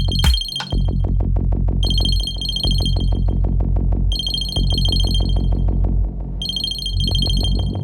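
Electronic music with a fast, steady beat and a high, ringing, ringtone-like tone that comes in short bursts about every two seconds.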